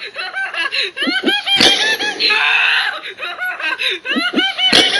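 High-pitched laughter in quick bouncing pulses with a harsher, noisier stretch between them, repeated as a loop about every three seconds; a sharp click marks each restart, about one and a half seconds in and again near the end.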